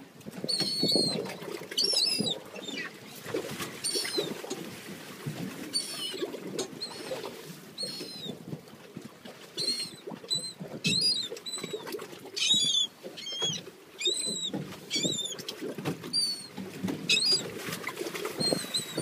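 Seabirds calling: short, high, squeaky calls repeated about once a second, over a steady wash of waves and wind around the boat.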